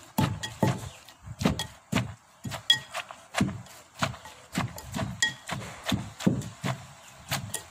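Pestle pounding in a mortar while making Lao papaya salad: a run of knocks about two a second, uneven, with dull thuds and a short ringing clink on some strokes.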